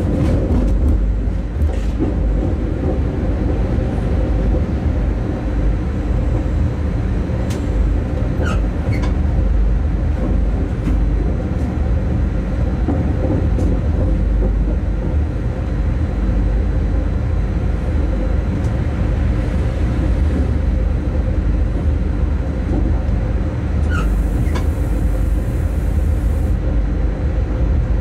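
Locomotive running along the line, heard from inside its cab: a steady low rumble and hum, with a few short high squeaks.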